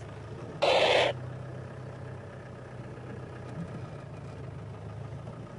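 Open safari vehicle's engine running steadily as it drives slowly along a dirt track. About half a second in, a loud half-second burst of hiss cuts in and stops abruptly.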